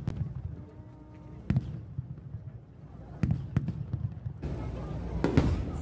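Aerial fireworks shells bursting: five sharp bangs about one to two seconds apart, with low rumble between them and the loudest bang near the end.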